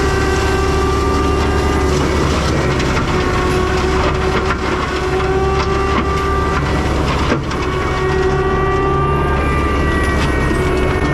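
CAT 299 compact track loader running a forestry mulcher head at high revs: steady engine noise under a whine from the spinning mulcher drum that sags and recovers in pitch as it bites into vegetation. It is broken by a few sharp cracks of wood being mulched.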